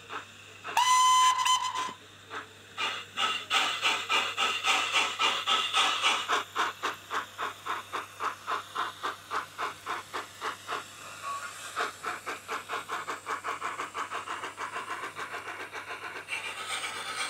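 Hornby M7 model steam tank locomotive's Zimo sound decoder, playing a YouChoos sound file through a sugar-cube speaker. A short whistle sounds about a second in. Then come steam exhaust chuffs that start slow and quicken as the loco pulls away, settling into a steady beat that is quieter in the later part.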